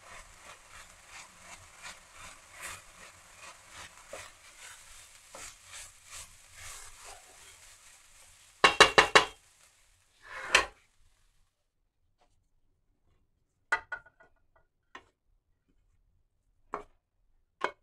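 Wooden spoon stirring minced chicken in a stainless steel frying pan, a soft sizzle with regular scrapes; about nine seconds in, four quick loud knocks, then a short scrape and a few sharp clicks as the cooked mince is scraped from the pan into a glass dish.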